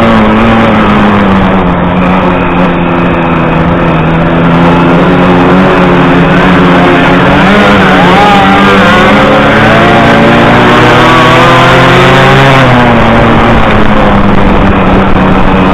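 Single-cylinder two-stroke 50cc Puch Maxi moped engine running hard at high revs, heard onboard. It is loud and steady, its pitch dipping and recovering now and then. A second racing moped's engine wavers in and out in the middle.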